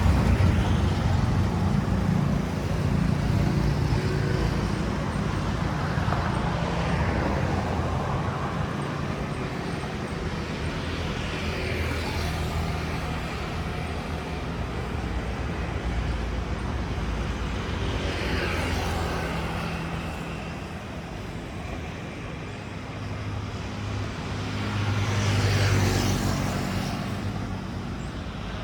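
Road traffic: motor vehicles running past one after another, with engine hum loudest at the start and again about 25 seconds in.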